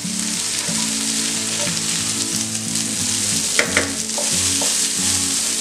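Diced carrot, beans, potato and cabbage sizzling in hot oil in a frying pan while a wooden spatula stirs them, with two quick knocks of the spatula about three and a half seconds in.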